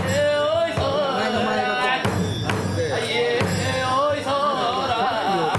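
Kagura music: a taiko drum beating under a wavering sung chant, with small metal cymbals ringing.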